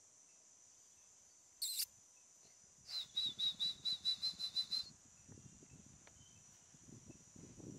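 A bird calling: a rapid, even run of about a dozen high pulsed notes lasting about two seconds, preceded by a brief sharp high chirp, over a steady high hiss.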